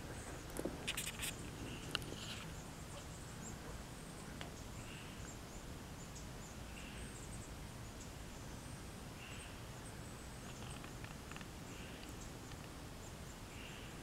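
Pacific tree frog giving single short calls, one about every two seconds, over a faint steady outdoor hush. A few sharp clicks and knocks sound in the first two seconds.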